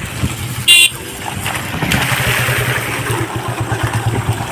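Motorcycle engine running at low speed, a steady low rumble while riding slowly over a potholed road. A brief, sharp high-pitched sound cuts in a little under a second in.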